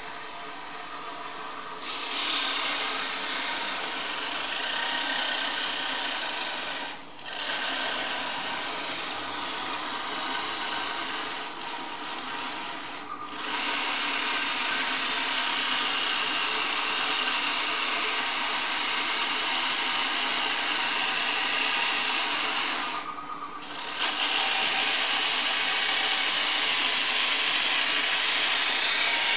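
Abrasive cut-off saw grinding through steel tube, a loud hissing grind that starts about two seconds in and briefly drops off three times between cuts.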